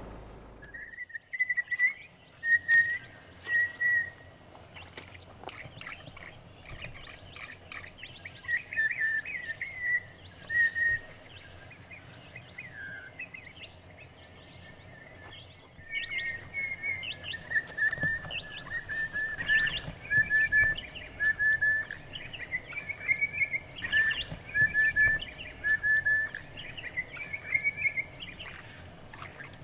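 Several birds calling and singing, many short whistled notes repeated in quick series, with other chirps over them. The sound changes abruptly twice, about a second in and near the middle.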